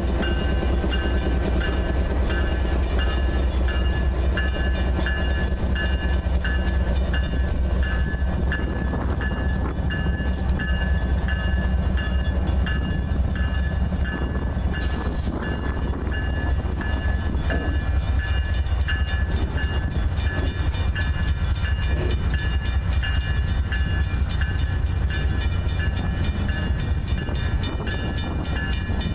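Slow freight train of flatcars and cabooses rolling past over a grade crossing, with a steady low rumble of wheels on rail. A grade-crossing bell rings over it in a steady repeating beat, and the wheels click more densely near the end.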